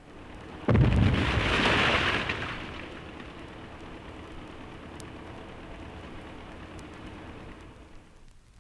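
Dynamite blast: a sudden deep boom about a second in, followed by a rushing rumble that settles into a steady hiss and drops away near the end.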